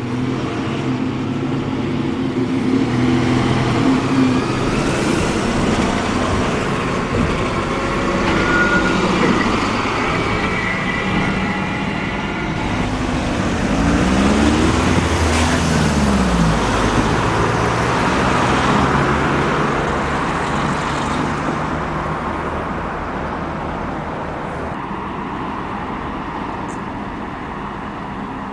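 Diesel vehicles running: bus engines in the first part, then a Northern diesel multiple-unit train passing, with an engine note that climbs and falls near the middle. The noise eases off over the last few seconds.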